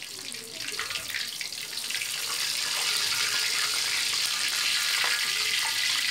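Pre-braised chicken pieces deep-frying in hot oil in a wok: a steady crackling sizzle that swells over the first two or three seconds, with the chicken fried through and ready to lift out.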